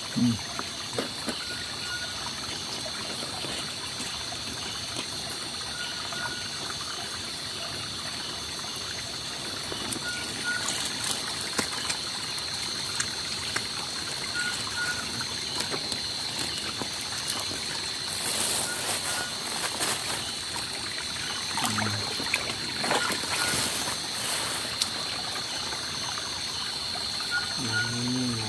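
Small forest stream trickling, under a steady high-pitched drone and a faint short chirp every few seconds. Brief rustling noises come twice, about two-thirds of the way in.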